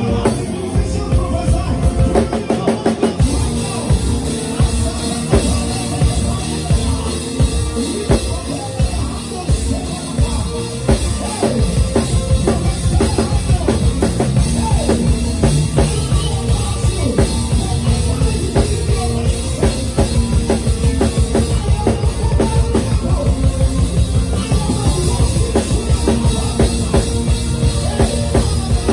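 Live praise band playing an upbeat instrumental groove, the drum kit and bass drum keeping a fast, steady beat.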